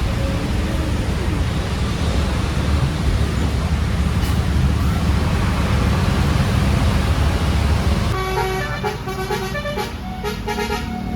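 A loud low rumble of bus engines and traffic, then, about eight seconds in, a 'telolet' multi-tone bus air horn playing a quick melody of short stepped notes.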